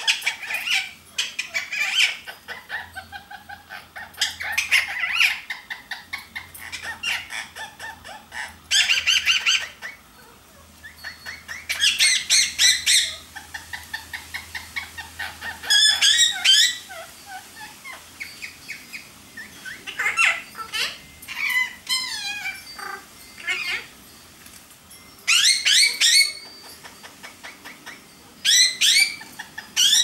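A pair of Indian ringneck parakeets calling and chattering: repeated bursts of fast, pulsed high calls, several of them loud and some sliding down in pitch, with quieter chatter in between.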